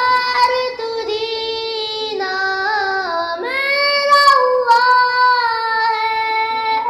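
A boy singing a naat, an Urdu devotional song, without accompaniment, drawing out long held notes with small turns in pitch. He breaks briefly twice and stops just at the end.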